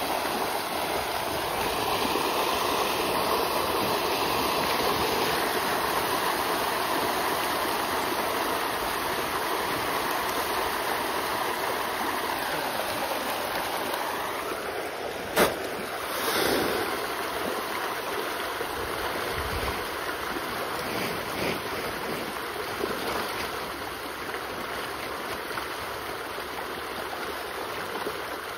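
A large shoal of pond fish thrashing and splashing at the surface as they feed on floating feed, a steady rush of churning water. A single sharp knock about halfway through.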